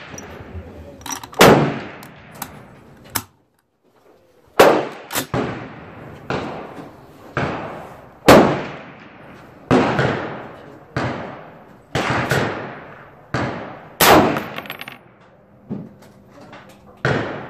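Rifle shots, including a Springfield Armory M1A Super Match in .308 Winchester: more than a dozen sharp reports at irregular intervals, each trailing off in a ringing echo.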